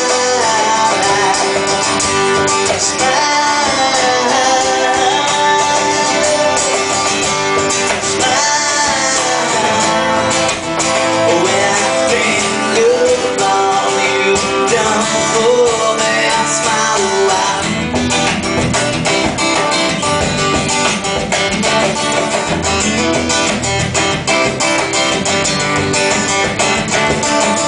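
A live band playing an instrumental break led by guitar, a melodic lead line over strummed chords, with the bass and drums filling out more fully about two-thirds of the way through.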